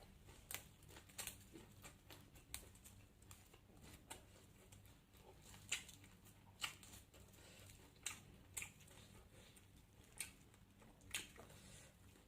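Faint eating sounds: irregular small clicks and crunches of someone chewing and handling food, about one to two a second, over a low room hum.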